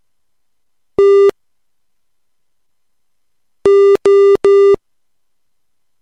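Morse code practice tone at one steady, buzzy pitch: a single dash about a second in, then three dashes in quick succession about two and a half seconds later, spelling the letters T and O.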